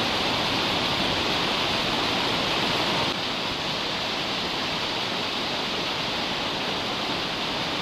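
Tall waterfall pouring down a rock face: a steady rush of falling water, dropping slightly in level about three seconds in.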